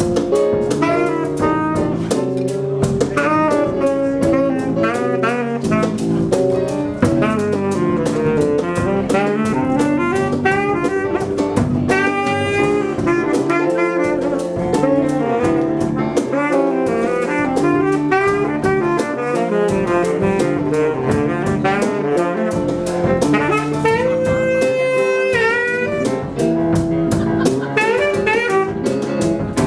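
Live jazz band playing: a saxophone plays the melody over keyboard, electric guitar, trombone and a drum kit keeping a steady beat.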